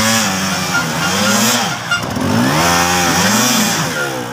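Dirt bike engine revved in repeated bursts, its pitch rising and falling about four times.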